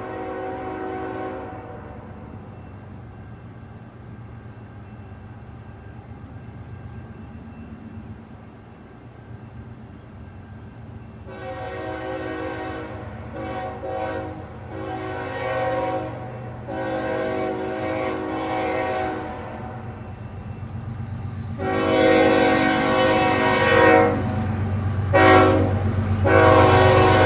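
CN freight locomotive's air horn blowing a series of long and short blasts as the train approaches, getting louder toward the end, over the low rumble of the diesel locomotives building up.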